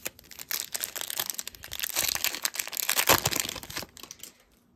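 Foil wrapper of an O-Pee-Chee hockey card pack being torn open and crumpled: a dense crackling from about half a second in, loudest a little after three seconds, stopping just before the end.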